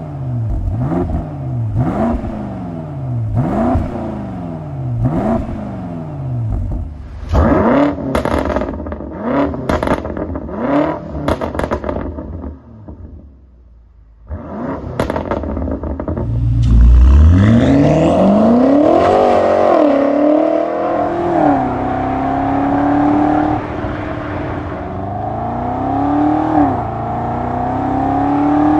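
BMW F90 M5's twin-turbo V8 through a Scorpion stainless half exhaust system: about five quick throttle blips, then more revs with sharp crackles and pops on the overrun. After a brief lull the car pulls away hard, the pitch rising and dropping through several gear changes before settling into a steadier run.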